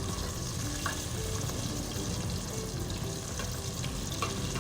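Battered chicken pieces deep-frying in hot vegetable oil: a steady sizzle with a few sharp pops.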